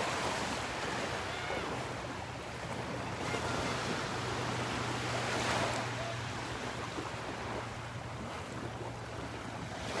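Gulf of Mexico surf washing onto the beach in gentle swells, with wind on the microphone and a faint steady low hum underneath.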